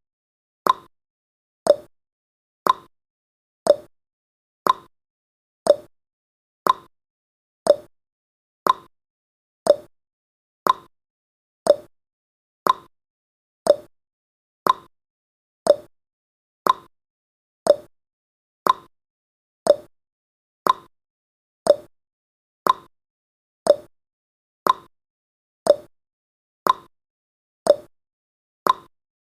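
Clock-like ticking sound effect of a countdown timer: short, crisp ticks at a steady one per second, each quickly dying away.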